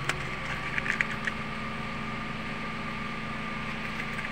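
Suzuki Carry Futura engine idling steadily with an even hum, plus a few light clicks about a second in.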